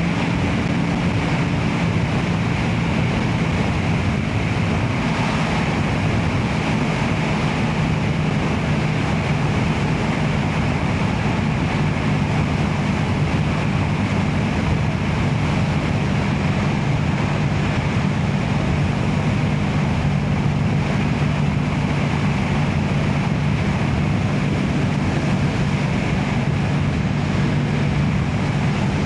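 Motorcycle engine running at a steady cruise under heavy wind rush on the rider's microphone, its pitch shifting slightly about a second in.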